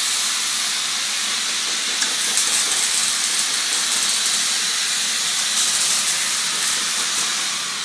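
Electric arc welding on steel: a steady crackling hiss that dies away near the end.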